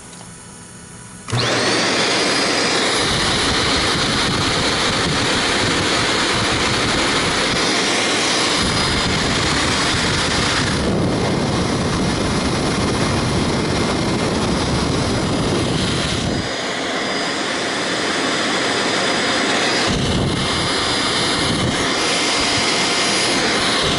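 Shark vacuum cleaner switched on about a second in, then running steadily with a rush of air and a thin high whine; the airflow sound changes in tone a few times as it runs.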